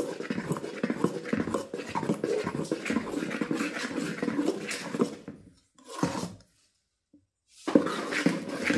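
Spoon stirring thick dosa batter in a steel bowl: a steady wet churning and scraping. It stops for about two seconds past the middle, apart from one brief stroke.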